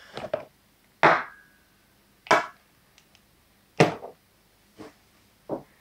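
Handled objects knocking on a hard surface: four sharp knocks, roughly one every second or so, with a few fainter taps between.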